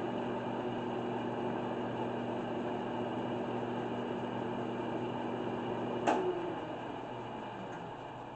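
Wood lathe motor running steadily with a hum while a rag buffs wax onto the spinning black walnut piece. About six seconds in there is a sharp click, the hum cuts out, and the lathe coasts down, growing quieter.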